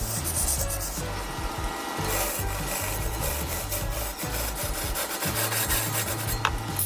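Hand-held turning chisel cutting into a large log spinning on a wood lathe: a continuous rasping scrape as shavings come off, over a low hum. One short sharp tick near the end.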